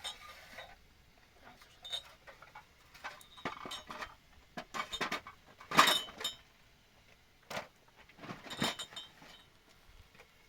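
Irregular knocks and clinks of objects being handled, some with a brief metallic ring; the loudest comes a little before the middle, another near the end.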